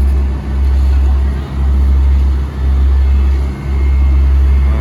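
Heavy asphalt-paving machinery running: a loud low rumble that pulses, dipping briefly about once a second.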